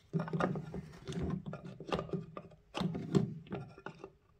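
Metal-cased LED power module being handled against a plastic headlight housing: irregular scraping, knocking and clicking as it is pushed toward its mounting spot.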